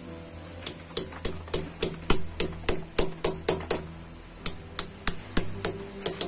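Claw hammer tapping metal bolt heads set in a cement wall, about three sharp knocks a second: a run of about a dozen, a short pause, then about seven more.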